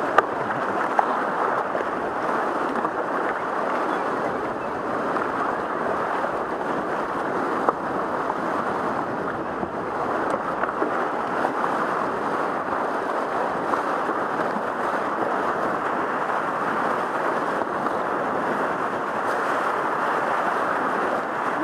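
Whitewater rapids at high flow, rushing and splashing steadily around a kayak running through them.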